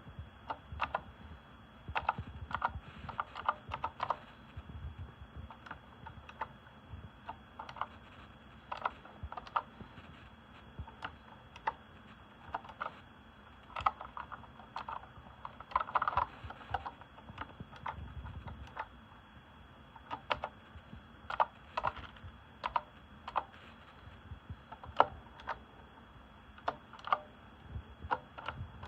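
Typing on an RK Royal Kludge S108 mechanical keyboard with blue switches: irregular clicky keystrokes, some in quick runs, with short pauses between.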